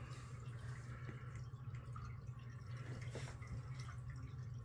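Quiet room tone with a steady low hum and a few faint, scattered clicks.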